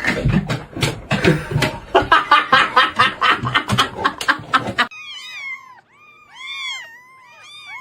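A stretch of rapid clattering and knocking mixed with pitched noises, then a sudden cut to a pet's string of short, high-pitched cries, each rising and falling.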